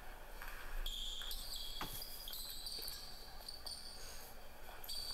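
Basketball being dribbled on a hardwood gym floor, with one sharp bounce about two seconds in, and a run of high-pitched sneaker squeaks on the court.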